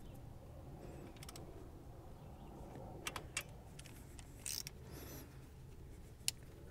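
A long torque wrench and socket worked on a brake caliper bracket bolt: a few sharp metallic clicks and two short scraping rattles, the loudest click near the end, over a low steady rumble.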